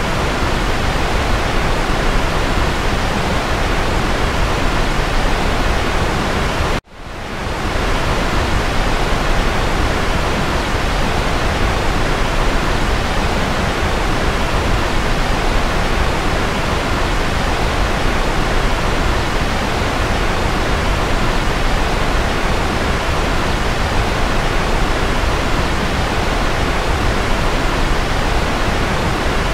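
Steady white noise, an even hiss across the whole range from deep to high. About seven seconds in it cuts out abruptly and fades back up over about a second.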